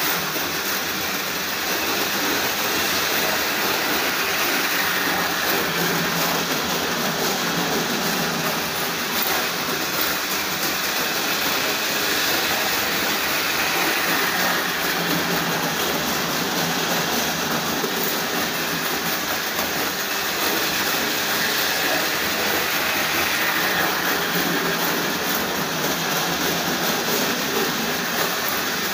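Model railway trains running on the layout's track: a steady whirring and rattling of the small electric locomotives and their wheels on the rails.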